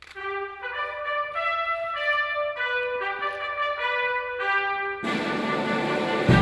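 Brass band music: a single brass line plays a melody of held notes, and the full band comes in about five seconds in.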